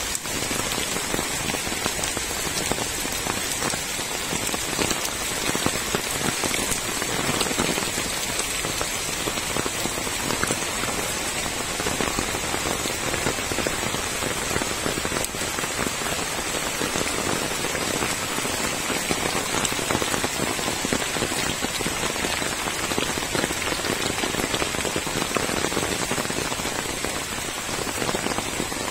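Heavy rain falling steadily on paving, puddles and wet soil, an even, unbroken hiss.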